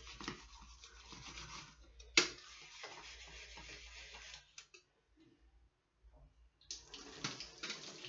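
Dish sponge scrubbing a drinking glass by hand at a kitchen sink, a rough steady rubbing with one sharp knock about two seconds in. The scrubbing stops for about two seconds, then starts again near the end.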